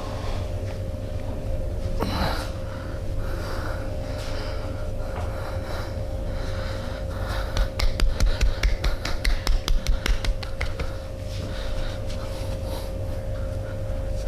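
Hands massaging a person, with soft rubbing and breathing. About halfway through comes a fast run of sharp hand strikes, around six or seven a second for some three seconds. A steady faint hum runs underneath.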